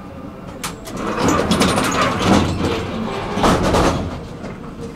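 Tram's sliding doors closing, a loud clatter and hiss with sharp knocks lasting about three seconds, loudest twice near the middle and end.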